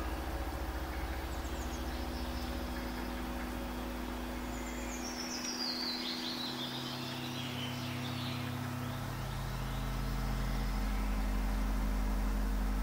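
Fantasy ambience of low, held drone notes that shift to new pitches every few seconds. Over it come bird calls: a few chirps early on, then a descending series of chirps from about five to eight seconds in.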